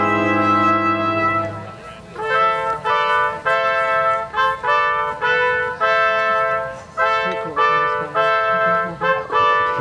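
Symphony orchestra playing a brass fanfare, led by trumpets. A held chord with low brass underneath fades out about two seconds in, then the trumpets play a rhythmic fanfare of short, repeated chords.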